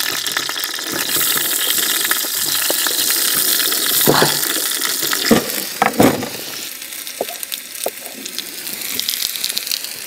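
Diced raw potatoes hitting hot oil in a frying pan and sizzling, with a few knocks as they are scraped off a wooden board. The sizzle eases in the second half, where light knife ticks on the board come through.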